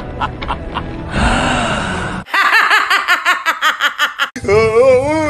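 A woman laughing hard. After about two seconds of indistinct noise, a fast run of 'ha-ha-ha' bursts starts, followed by a wavering, squealing laugh with gasps.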